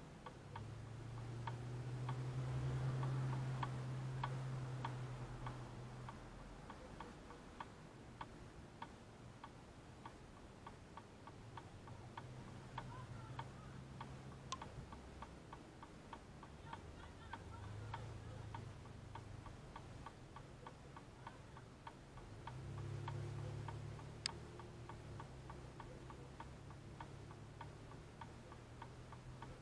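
A vehicle's indicator flasher ticking steadily, a few even clicks a second. Under it, the low hum of passing traffic swells twice.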